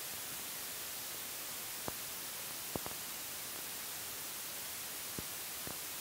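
Steady hiss of an old film soundtrack with no narration, broken by a handful of faint, brief clicks.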